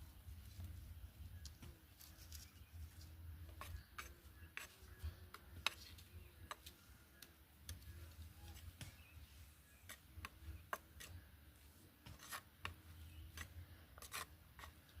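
Faint wood cooking fire crackling, with sparse, irregular sharp ticks and pops over a low rumble.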